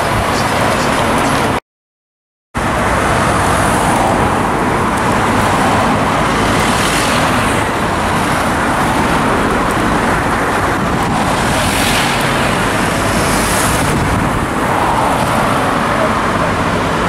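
Steady road traffic noise with vehicle engines running. The sound cuts out completely for about a second near the start, then carries on unchanged.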